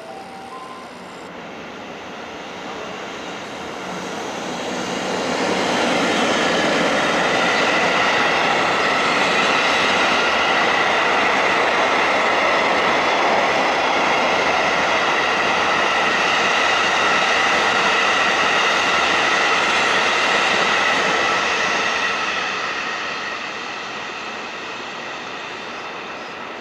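JR Freight EF64 electric locomotive and its train of empty Hoki 9500 steel hopper wagons passing at speed. The rumble grows over the first six seconds, stays loud with a steady high-pitched squeal for about a quarter of a minute while the wagons go by, then eases as the train moves away.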